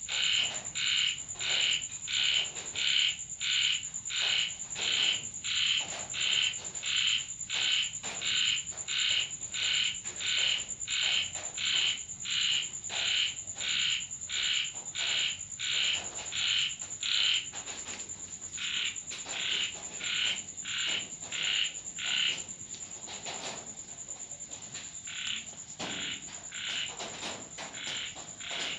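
Frog chorus at night in the rain: a frog croaking over and over, about two calls a second, falling quieter and more broken up after about 17 seconds. A steady high-pitched whine runs underneath.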